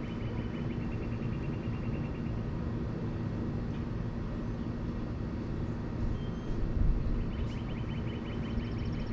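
Outdoor ambience: a steady low rumble with a high, rapid trill in the first two seconds and again in the last three.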